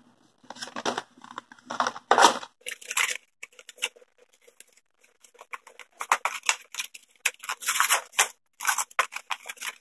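Cardboard box and packaging being handled and pulled open by hand: irregular bursts of scraping, rustling and tearing, with a quieter stretch in the middle.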